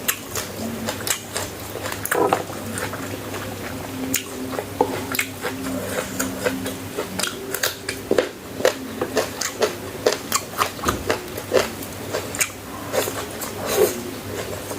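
Close-miked chewing and biting of food, with a dense, irregular run of sharp clicking mouth sounds.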